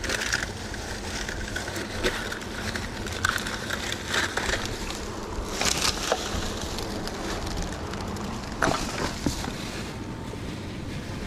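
Wind rushing on the microphone, with scattered scrapes and crunches of boots on rough rock and rustling of plastic bags being handled.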